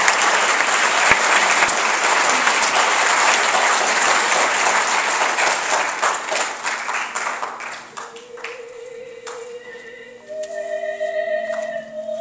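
Audience applause that fades out over the first seven or eight seconds. A slow choral piece follows, with voices holding long, steady notes, growing louder near the end.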